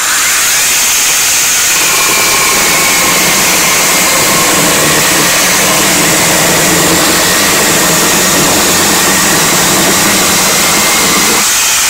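HYCHIKA 8-inch brushless battery mini chainsaw cutting through a seasoned dry almond log, a very hard wood. It starts suddenly, runs steadily at full speed through the cut with a faint whine over the chain noise, and begins to wind down near the end.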